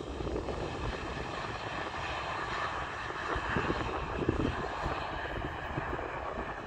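The Embraer E195-E2's Pratt & Whitney PW1900G geared turbofan engines running as the airliner rolls on the runway after landing, a steady jet rush that swells a few seconds in and then eases. Wind rumbles on the microphone now and then.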